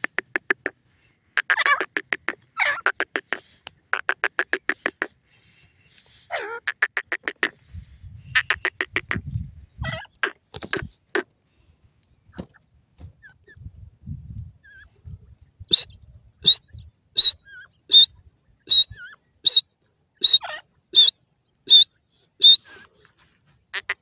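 Grey francolin calling: rapid stuttering trains of short notes in several bursts, then after a pause a run of about ten sharp, high single calls, a little under a second apart.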